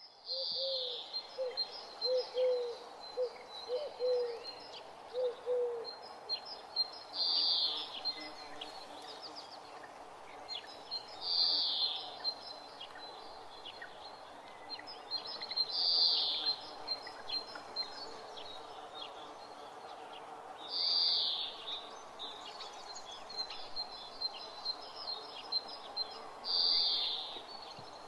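Birdsong ambience: a call about a second long repeats about every four to five seconds over a steady chorus of short high chirps. A run of short, low, evenly spaced notes sounds through the first six seconds.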